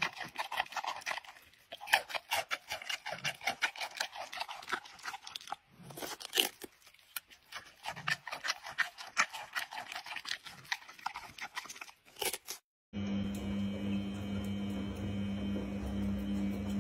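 Giant panda chewing raw pumpkin: a long run of quick, crisp crunching bites with short pauses. About thirteen seconds in this gives way to a steady low hum from a front-loading washing machine running.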